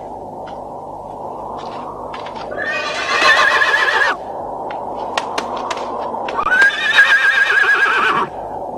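Horse whinnying twice, each a quavering call about a second and a half long. The horse is nervous and balking at its rider's urging.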